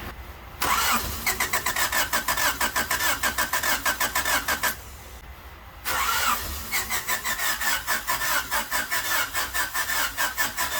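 Starter cranking the engine of a 1988 Honda Civic wagon in two bursts of several seconds each. The engine turns over in a quick, even rhythm without firing, because its fuel injectors are pulled out into bottles to check that they spray.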